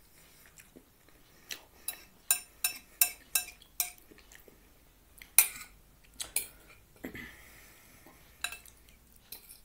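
A metal fork clinking and scraping against a plate of food: a run of sharp clicks starting about a second and a half in, the loudest about halfway through, with a short scrape a little later.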